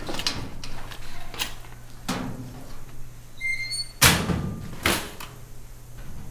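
Metal locker banging: a sharp, loud bang about four seconds in and a second, smaller bang just under a second later, with softer knocks before, over a steady low hum.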